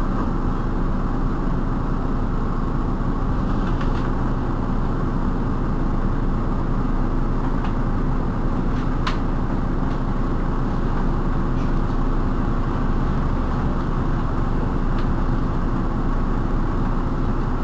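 Iveco Urbanway 18 articulated city bus standing with its engine idling: a steady, unchanging low hum. A single short click about nine seconds in.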